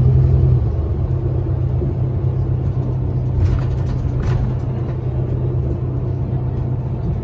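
City bus engine and road rumble heard from inside the passenger cabin, a steady low hum, with two faint clicks about three and a half and four seconds in.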